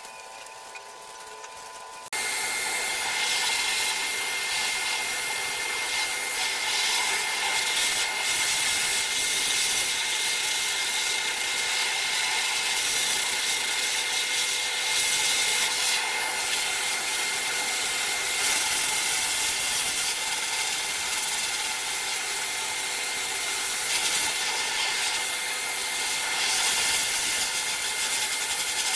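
High-velocity pet dryer blowing: a loud, steady rush of air with a constant high motor whine. It starts abruptly about two seconds in.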